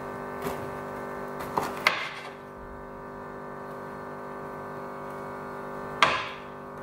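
A kitchen knife cutting down through a chilled, chocolate-topped oat bar slab and knocking on a wooden cutting board: a few sharp taps, the loudest about two seconds in and another near the end.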